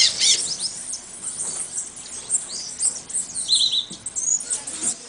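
Several small birds chirping and calling at once: many short, high chirps overlapping, with a quick flurry of notes a little past halfway.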